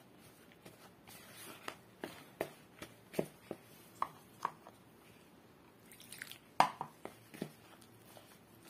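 Metal spoon stirring thick flour batter in a plastic mixing bowl, giving scattered clicks and taps as it knocks against the bowl. One louder knock comes about six and a half seconds in.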